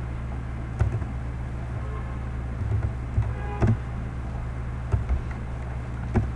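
A few scattered computer keyboard keystrokes, single sharp clicks a second or more apart, over a steady low electrical mains hum.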